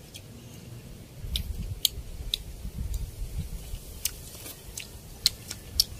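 Close-up chewing and mouth smacking of people eating rice with their hands, starting about a second in, with a scatter of sharp little clicks.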